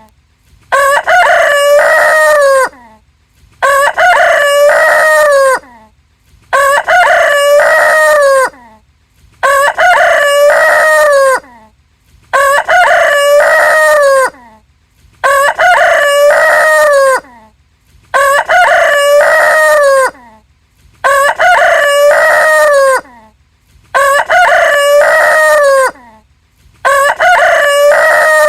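Rooster crowing, the same cock-a-doodle-doo repeated about ten times at even intervals of roughly three seconds, each crow about two seconds long and ending in a falling tail.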